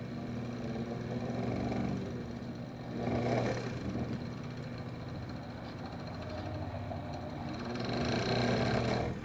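Motor of a homemade wire-twisting rig spinning a drill chuck to twist nichrome wire for a coil, a steady hum that swells louder a few times as the pedal is pressed. It stops abruptly near the end.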